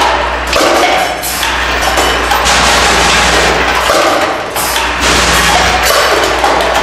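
Brass fittings clattering as a Delta LCM22 piece-counting machine feeds and counts them and drops them into a box: a dense, continuous rattle of many small knocks and chinks over a steady low hum.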